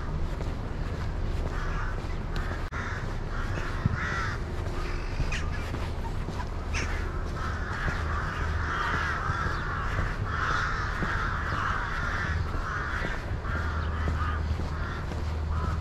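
Crows cawing, several harsh caws at first and then a dense run of calls lasting several seconds past the middle, over a steady low hum.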